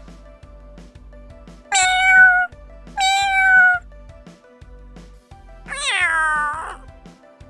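A domestic cat meows three times, the third meow longer and falling in pitch, over background music with a steady beat.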